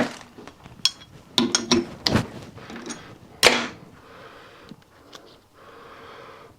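Metal parts and tools being handled and set down on a workbench: a string of sharp knocks and clicks over the first few seconds, the loudest about three and a half seconds in, then only faint noise.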